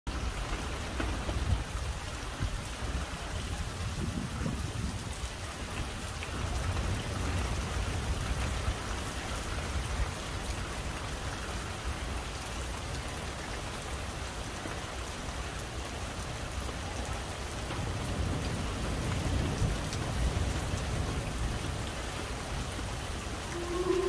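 Steady heavy rain with low rumbling swells underneath. Near the end an outdoor tornado warning siren starts to wind up, its tone rising.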